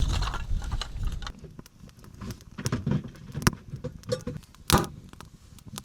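Irregular clicks, knocks and light jingling, like small objects being handled, with a low rumble over the first second or so and two louder knocks later on.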